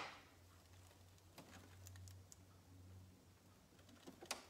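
Near silence: a few faint small clicks and handling noises from hands rethreading a Brother Innov-is sewing machine, the sharpest click coming near the end, over a faint low hum.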